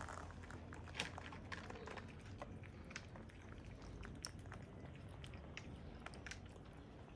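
Cats eating: irregular small crunching clicks of chewing.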